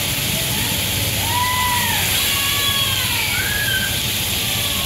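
Loaded coal train rolling past behind a line of trees: a steady rumble and rush of freight cars on the rails. From about one to four seconds in, there are several brief high squeals that rise and fall.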